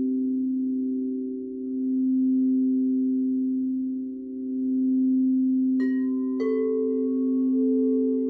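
Frosted quartz crystal singing bowls ringing together in sustained low tones that swell and fade every few seconds. About six seconds in, two light mallet strikes half a second apart set another bowl ringing with a higher tone on top.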